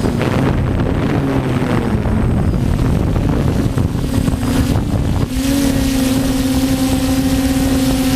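DJI F450 quadcopter's motors and propellers whirring in flight, with wind buffeting the microphone. The motor hum wavers at first, then holds a steady pitch from about five seconds in.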